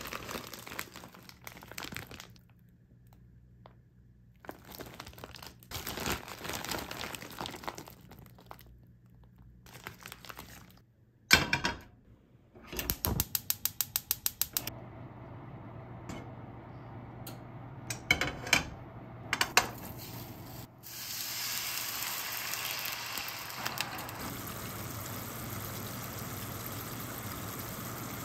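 A plastic bag of frozen gyoza crinkling, a knock, then a gas stove's igniter clicking rapidly, several clicks a second, as the burner lights. After a few more clicks, a steady sizzle of gyoza frying in bubbling water in a frying pan.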